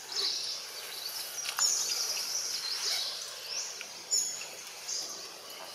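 Outdoor woodland ambience with birds chirping: short, high calls that rise and fall, repeating every second or so over a steady background hiss, with one sharp click about four seconds in.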